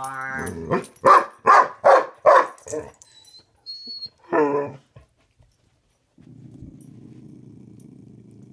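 Dog barking four times in quick succession, then a brief high squeak and one more bark. After a pause of about a second, a low steady growl starts from the corgi hidden under the bed, a play growl in a game of hide and seek.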